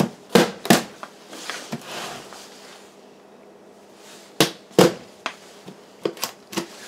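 A soft-faced mallet tapping a big screwdriver wedged into the notches of a Valence 12 V lithium battery's plastic case, working the top cover loose. Three sharp taps come in the first second, then several more from about four and a half seconds in.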